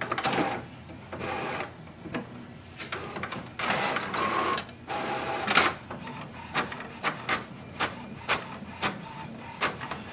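HP OfficeJet Pro 8135e inkjet printer printing a page. For about the first six seconds its mechanism whirs and swishes in longer runs, with a steady tone now and then. After that it makes short, regular strokes, about two a second.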